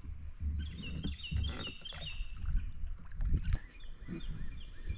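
A songbird singing a quick run of short falling whistled notes, then a second run about three seconds later. Underneath is a low rumble with a few sharp knocks from the boat.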